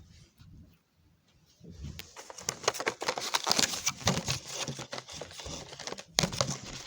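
Paper rustling with irregular clicks and taps as letter cards are handled and shuffled, starting about two seconds in after a quiet moment.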